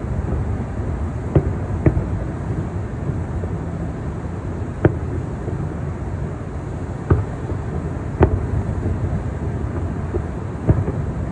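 Distant fireworks shells bursting across the harbor: about six sharp, separate bangs spread over the stretch, heard over steady wind and city traffic noise.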